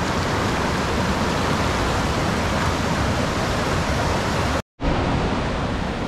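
Steady, loud rush of water. It drops out for a split second about three-quarters of the way through, then carries on.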